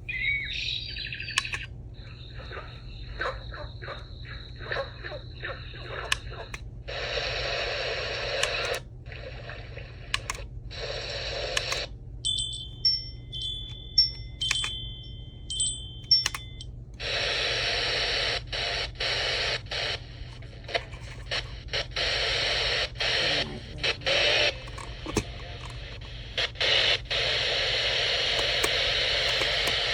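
i-box Dawn alarm clock's built-in sleep sounds played through its small speaker, switched every few seconds with clicks. Steady rushing noise tracks alternate with a short stretch of thin tones near the middle, each starting and stopping abruptly.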